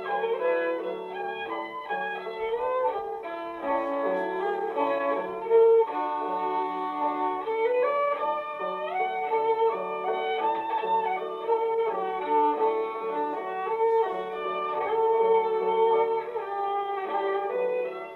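Fiddle music: a tune of held and sliding notes over a lower accompaniment.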